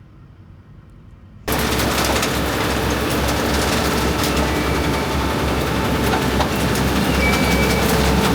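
Quiet low hum, then about a second and a half in, heavy machinery cuts in loud: an engine running steadily under a dense, fast clattering rattle.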